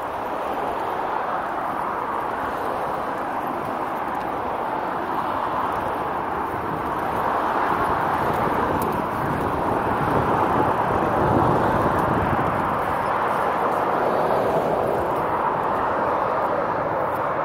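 Steady rushing noise of a moving bicycle ride picked up by a handheld phone, growing louder through the middle.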